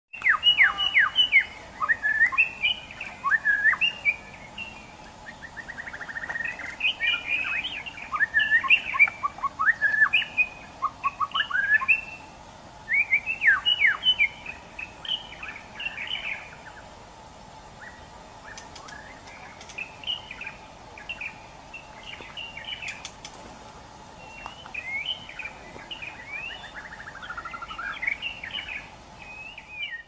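White-rumped shama singing a varied song of rich whistled phrases that glide up and down, broken by quick trills. It sings loudly through the first half and more softly from about sixteen seconds on.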